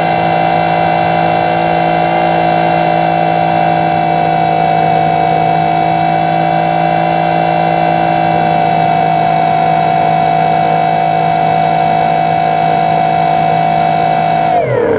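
Single electric motor and propeller of a SkyEye RC plane heard from its onboard camera: a steady, loud, high whine at constant throttle. About half a second before the end the pitch drops sharply as the throttle is pulled back.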